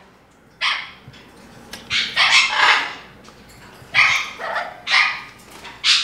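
Double yellow-headed Amazon parrot giving a string of short, harsh squawks, roughly one a second.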